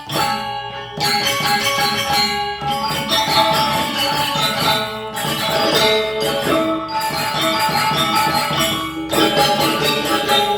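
Balinese gong kebyar gamelan playing loud, fast music: ringing bronze metallophones and gongs with clashing cymbals, the ensemble breaking off sharply several times and coming back in.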